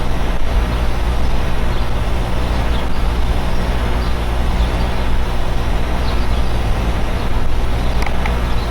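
Neighbours' central air conditioner units running outdoors: a steady, loud hum with fan and compressor noise that does not change.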